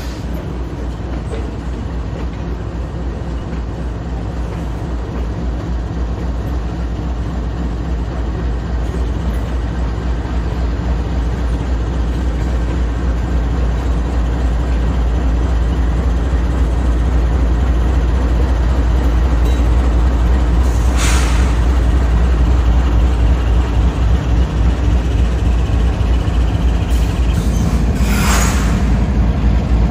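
Diesel freight locomotives, a Norfolk Southern unit leading Union Pacific units, running with a steady deep engine rumble that grows louder as they come close and pass. Two short hisses of air sound, one about two-thirds of the way through and one near the end.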